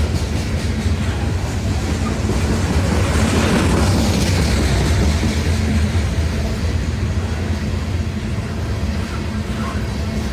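Loaded unit coal train rolling past, steel wheels on the rails with a steady low drone underneath. It swells about three to five seconds in, then eases.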